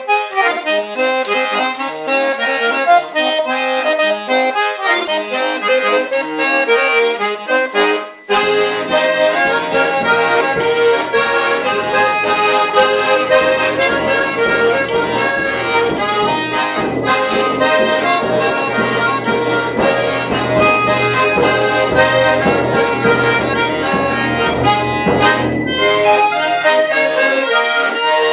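A polka played on two button accordions, a large Hohner and a small one. After a brief break about eight seconds in, a bass drum beats along and the music grows louder.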